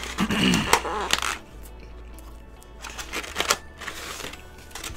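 A brief voiced sound from the eater at the start, then a few sharp clicks and light rustles from gloved hands handling a takeout container and chopsticks.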